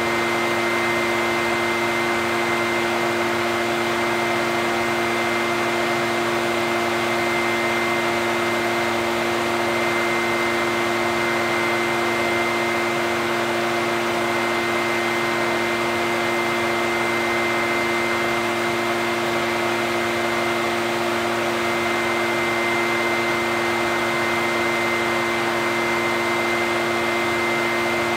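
Echo backpack leaf blower's two-stroke engine running at a steady speed: an unchanging rush of air with a steady hum.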